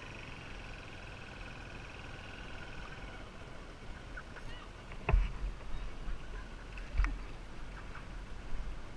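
Motorbike engine running at low speed under wind noise on a bike-mounted camera, with two sharp knocks about two seconds apart a little past halfway.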